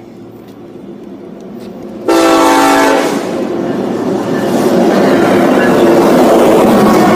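Union Pacific diesel freight train approaching with a growing rumble, then a sudden loud blast of the locomotive's air horn about two seconds in, lasting about a second. The locomotives and freight cars then pass close by with a loud, steady rumble and rattle of wheels on rail.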